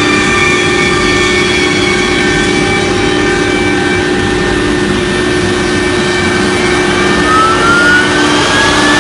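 CNC router with a 6 kW HSD spindle running in a factory: a loud, steady machine noise with several held whining tones. Over the last two seconds one whine rises in pitch.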